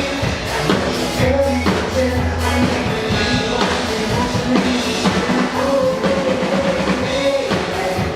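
A woman singing a pop song live with a band, her held melody notes over a drum kit and bass keeping a steady beat.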